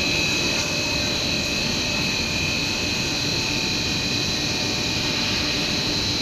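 Four-screw 2000 mm cast stretch film machine running at steady speed: an even drone of motors and rollers with two steady high whines over it.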